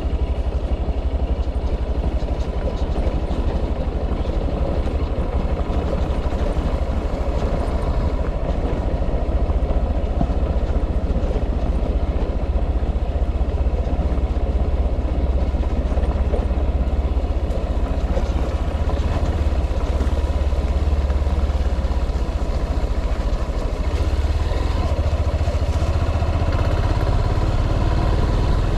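A vehicle on the move, its engine and road noise making a steady low rumble with a faint constant whine.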